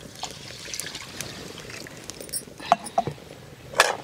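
Water and oil being poured into clay cooking pots, a steady pouring sound. There are a few knocks of pots being handled, the loudest near the end.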